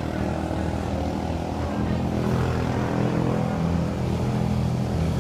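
A motor vehicle engine running with a steady low drone, a little louder from about two seconds in.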